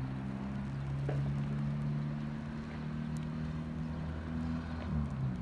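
A motor running at a steady speed: a low, even hum that dips in pitch about five seconds in.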